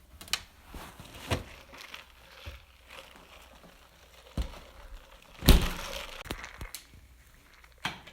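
Scattered knocks and thuds with rustling and crinkling between them, the loudest thud about five and a half seconds in.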